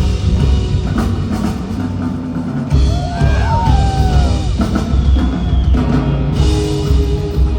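Rock band playing live in an arena, with drum kit and bass keeping a steady beat and no singing. Several high sliding notes that rise and fall come in about three seconds in.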